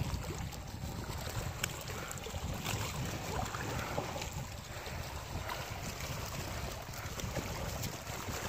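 Wind buffeting the microphone outdoors: a steady low rumble with a few faint clicks.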